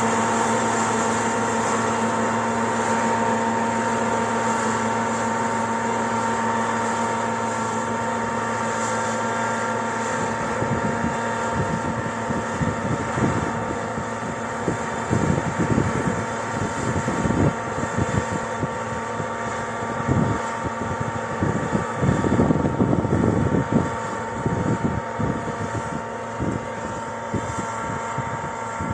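Combine harvester running while harvesting rapeseed: a steady machine hum with several held tones, joined from about ten seconds in by irregular low rumbling bursts.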